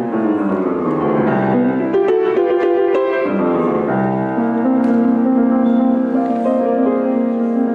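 Piano playing slow chords, with one chord held through the second half.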